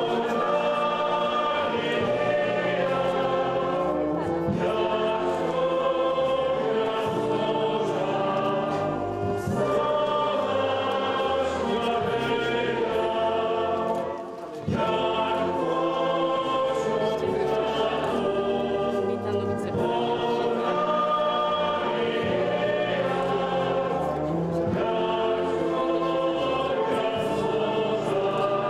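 Choir singing a hymn in long held phrases, with a short break about halfway through.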